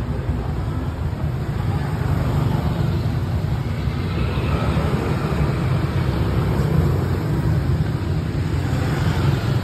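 Street traffic noise: a steady low rumble with a faint hiss above it.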